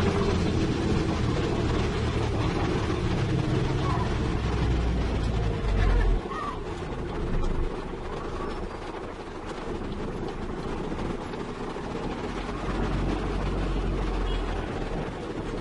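Heavy truck's diesel engine and road noise heard from inside the cab while driving, a steady low drone. A brief low thump comes about six seconds in, after which the drone eases to a lower level.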